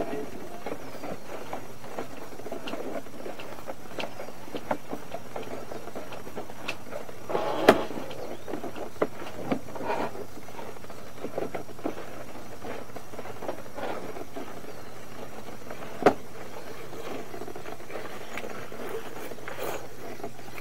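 RIDGID push-camera push cable being pulled back by hand out of the sewer line: irregular scraping and rubbing with short squeaks and scattered clicks, the sharpest clicks about eight and sixteen seconds in, over a steady low hum.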